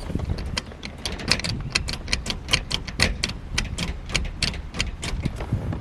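Ratchet wrench clicking on the shifter mounting bolts, a quick run of sharp clicks at about six a second.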